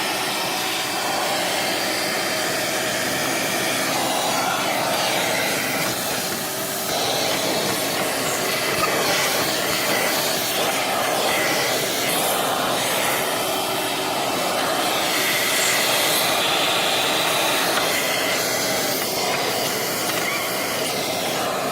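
Shop vacuum running steadily with a loud, even rushing hiss, sucking packed nest material out of a truck's air intake.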